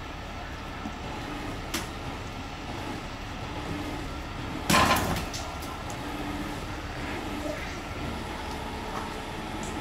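Tow truck engine running steadily in the background, with a short loud clatter about five seconds in.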